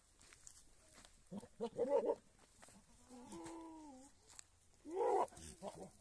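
Goats bleating: a loud, broken call about a second and a half in, a longer steady bleat around three seconds in, and another loud call about five seconds in.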